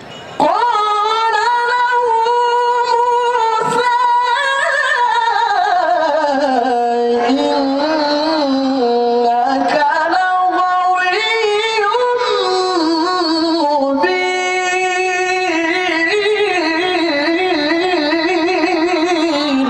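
Adult male qari reciting the Quran in melodic tilawah style, drawing out one long phrase with wavering, trilled ornaments on held notes. The voice sinks in pitch partway through and climbs back up later.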